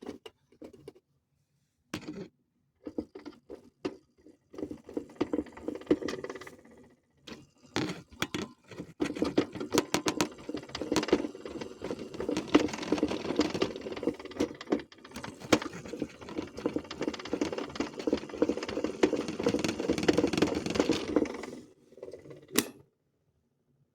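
A modified Zanussi toy washing machine running, its small motor and drum rattling with many quick clicks. It starts and stops in short spurts at first, then runs steadily for about thirteen seconds before stopping with a sharp click near the end.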